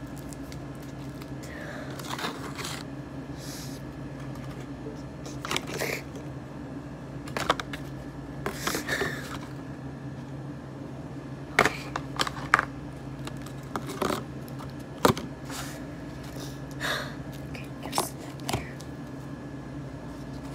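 Scattered clicks and crinkles of a plastic honeycomb container and disposable plastic gloves being handled, over a steady low hum.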